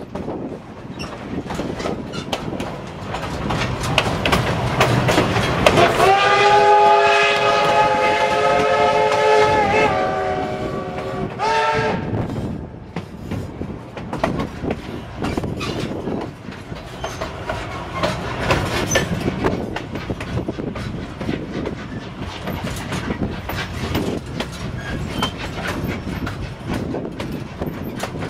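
Narrow-gauge steam train of the Cumbres & Toltec Scenic Railroad running, its wheels clicking steadily over the rail joints. About six seconds in, the locomotive's steam whistle sounds one long blast of about four seconds, several notes at once, then one short blast.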